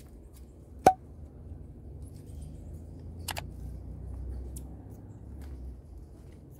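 Low rumble of the phone being handled as it pans, with one sharp click about a second in and a few faint, short high ticks later on.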